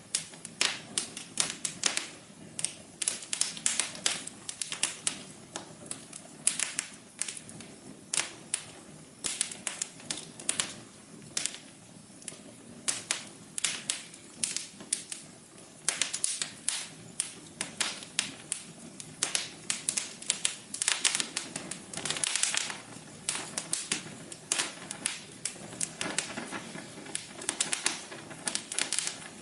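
Fireplace fire crackling: irregular sharp snaps and pops, several a second, over a soft steady hiss.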